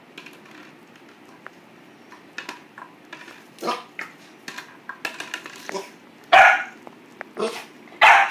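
Boxer puppy barking at a plastic bottle: several short, loud barks, the loudest about six seconds in and again near the end, between lighter clatters of the plastic bottle being pawed on a tile floor.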